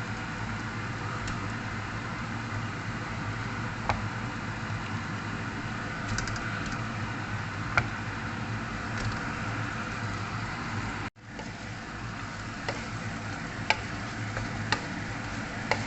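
Chicken pieces frying in a pan with curry powder: a steady sizzle with occasional sharp pops and clicks. The sound cuts out for an instant about eleven seconds in.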